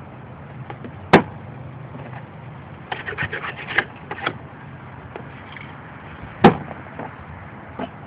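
Spray paint cans and tools handled on a table: two sharp knocks, about a second in and about six and a half seconds in, and a quick run of rattling clicks around the middle, over a steady low background noise.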